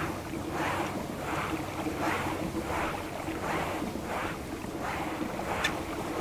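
Water swishing along a kayak's hull in a steady rhythm, about three swishes every two seconds, with wind on the microphone. There is a single sharp click near the end.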